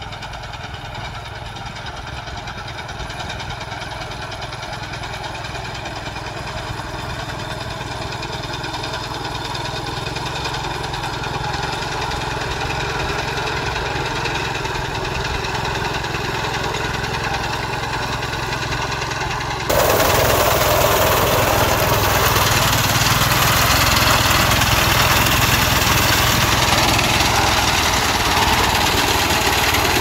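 Rice harvester engine running steadily and slowly growing louder. About two-thirds of the way in, the sound abruptly jumps to a much louder, harsher, noisier din that holds steady.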